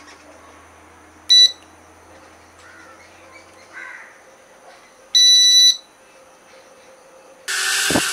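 Two electronic beeps from the homemade remote control's buzzer, a short one and then a longer one of about half a second. Near the end the small brushed motors and propellers of a homemade mini quadcopter drone start a loud, steady whir.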